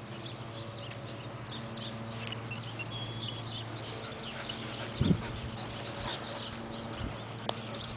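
Quiet outdoor ambience with faint bird calls over a low steady hum. A brief low thump comes about five seconds in, and a small click near the end.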